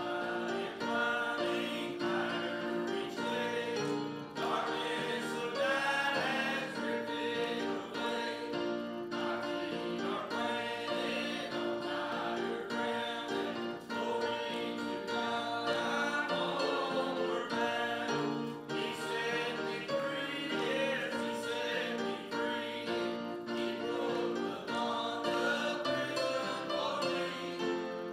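A hymn being sung to grand piano accompaniment.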